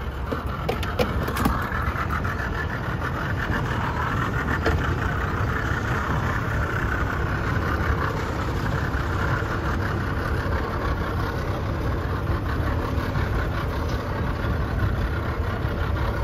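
Boat engine idling with a steady low rumble. There are a few light clicks about a second in.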